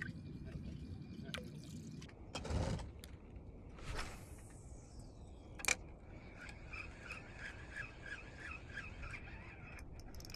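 A fishing line whooshing out on a cast, a sharp click, then a spinning reel cranked steadily for about four seconds with a fast, even ticking whir.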